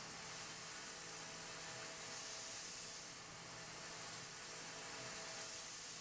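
Tormach 770M CNC milling machine taking a finishing pass with an end mill on a copper block: a steady hiss with a faint spindle hum, the hiss swelling and easing every few seconds as the cutter works around the profile.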